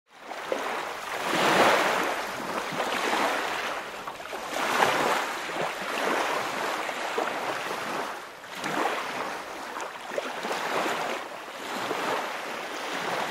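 Water waves washing in, a steady rushing wash that swells and falls back every few seconds.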